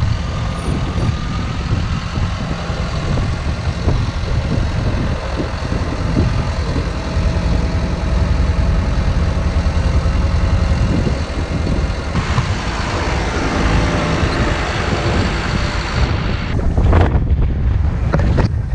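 John Deere 6140 tractor's diesel engine running steadily, with strong wind buffeting the microphone.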